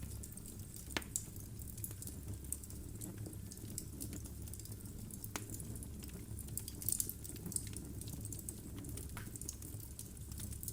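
Wood fire of logs burning in a fireplace: a steady low rumble of flame with irregular crackles and sharp pops, a cluster of them about seven seconds in.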